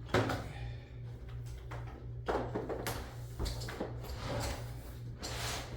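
A mini refrigerator being shoved across the floor into place, scraping and bumping in about four separate pushes.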